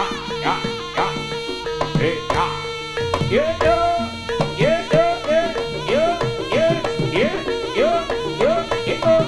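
Javanese jaranan gamelan music: kendang drum strokes that bend up in pitch, about two a second, over a held steady tone, with no voice.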